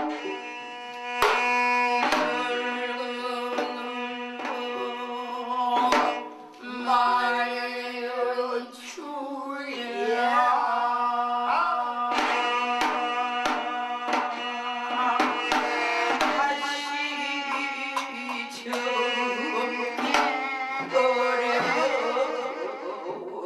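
Korean shaman-ritual (gut) music: drum strokes under sustained, sliding melodic lines over a steady held low note.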